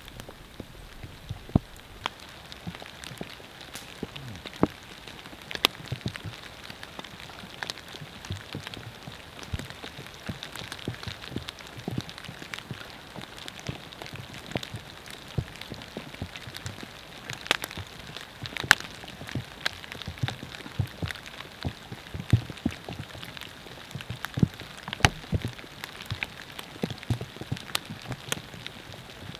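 Rain falling, a steady hiss with many sharp, irregular drop ticks landing close by.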